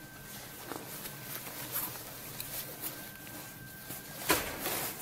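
Rustling of outer clothing being handled and pulled on, with scattered small clicks and a louder swish about four seconds in.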